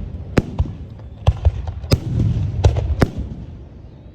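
Aerial fireworks exploding: about seven sharp bangs at irregular intervals over a low, continuous rumble.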